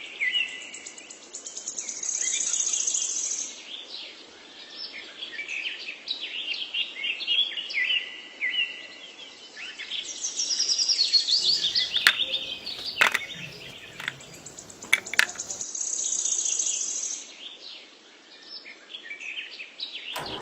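Birds chirping and twittering, with a few sharp clicks about twelve, thirteen and fifteen seconds in.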